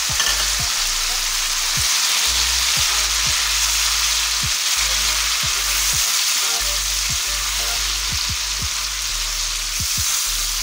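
Fried onions and fresh tomato paste sizzling steadily in hot oil in a nonstick pan, stirred with a silicone spatula that brushes and knocks against the pan now and then.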